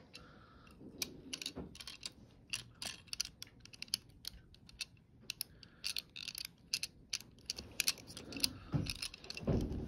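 Irregular light clicks and rattles of small die-cast toy cars and their plastic packaging being handled and fiddled with.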